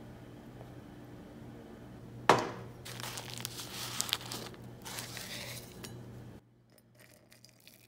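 A measuring spoon clinks sharply once against a mug, then a paper tea bag crinkles in the hand with a few light clicks, over a low steady hum. The sound cuts off suddenly about a second before the end.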